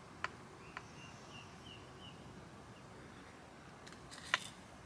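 A few small sharp clicks and taps from fishing tackle being handled, the loudest cluster about four seconds in. A bird gives four or five short high chirps about a second in.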